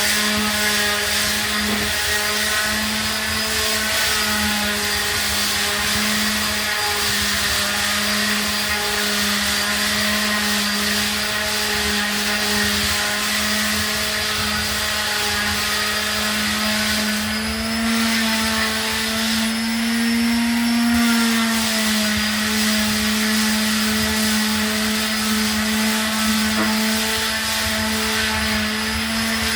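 Electric power sander running steadily on a wall, a steady motor whine over a rushing hiss; its pitch lifts slightly for a few seconds a little past the middle.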